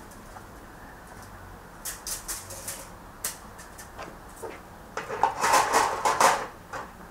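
Metal shashlik skewers clattering and scraping against a metal bowl as they are handled, loudest in the second half, after a few lighter ticks and rustles.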